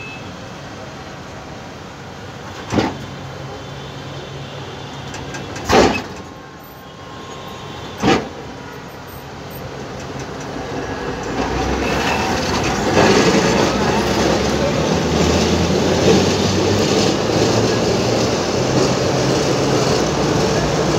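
An old Alexandria tramcar rolling slowly past at close range, with three sharp knocks from the running gear a few seconds apart, then its running noise swells to a louder, steady rumble with a low hum.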